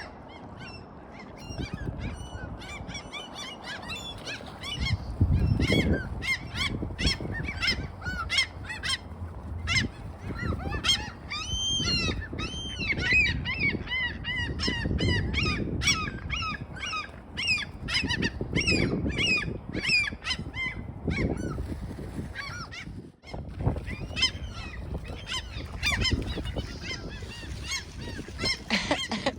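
A flock of gulls calling over one another: many short, arching squawks and cries, densest through the middle, over a low rumbling background.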